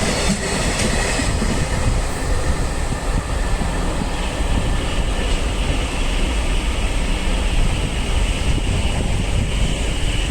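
A train running past with a steady rumble of wheels on the rails. A thin, higher ringing band joins about four seconds in.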